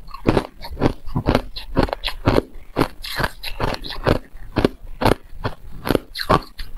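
Crushed ice being chewed close to the microphone: a quick run of sharp, crisp crunches, about three or four a second.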